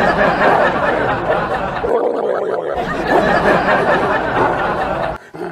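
A loud, dense clamour of many voices at once, a crowd in commotion, cutting off abruptly near the end.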